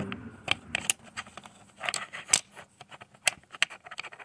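Makeup brushes rummaged through in a brush holder: irregular light clicks and rattles of handles knocking together, the sharpest about two and a half seconds in.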